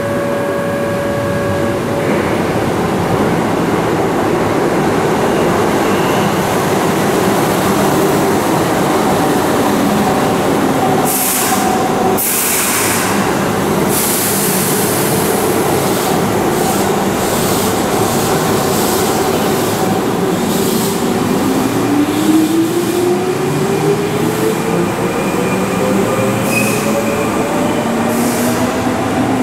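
Keihan 8000-series electric train at an underground platform, then pulling away: a few sharp bursts of hiss partway through, and over the last ten seconds the traction motors' whine rises steadily in pitch as the train accelerates, echoing in the underground station.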